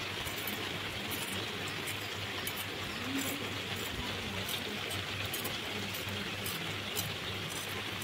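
Steady hiss of falling rain, with faint, irregular scraping strokes of a knife blade over the spiny skin of a kakrol (spiny gourd).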